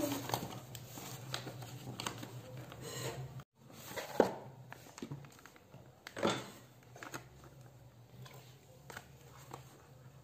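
Light knocks and clinks of kitchen things being handled on a stone counter, the two sharpest about four and six seconds in, over a steady low hum.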